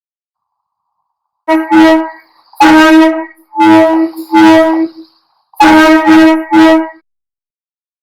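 Truck air horn sounding SOS in Morse code: a group of short blasts, three long blasts, then three short blasts, all on one steady pitch.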